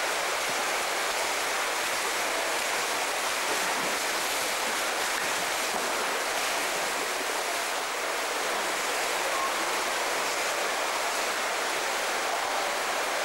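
Swimmers splashing through the water of an indoor pool: a steady, even rush of water noise.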